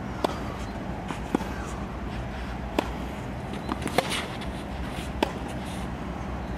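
Tennis ball being struck by racquets and bouncing on the court in a rally: sharp pops roughly once a second, over a steady low background hum.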